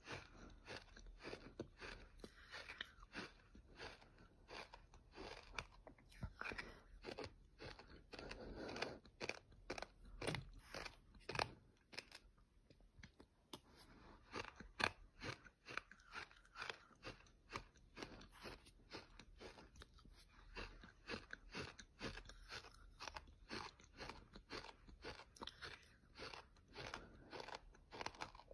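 Fine light gold beach sand being chewed in the mouth: a steady run of gritty crunches, a few per second.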